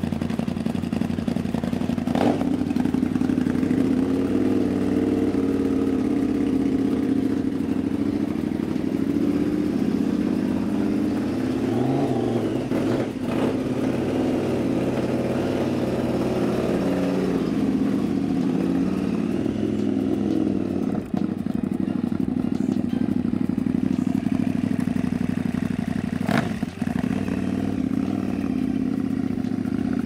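KTM 990 Adventure LC8 V-twin engine running steadily in a small four-wheel off-road kart, rising and falling in pitch through the middle as it is driven slowly in reverse and forward. A few sharp clacks sound over it.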